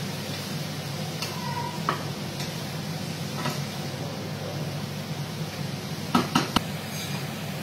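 Beetroot pieces frying in oil in a small pan, stirred with a spatula that scrapes and clicks against the pan, with three sharper knocks about six seconds in. A steady low hum runs underneath.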